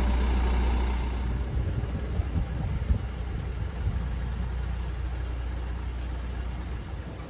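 Diesel engine of the Asa Kaigan Railway DMV93 dual-mode vehicle running with a steady low drone. The drone eases slightly about a second in, and irregular low bumps and knocks come through after that.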